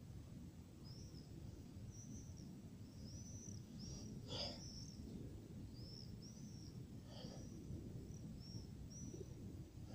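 Quiet outdoor ambience: a low, steady background rumble with a bird chirping about a dozen short, high notes, one louder call about four seconds in.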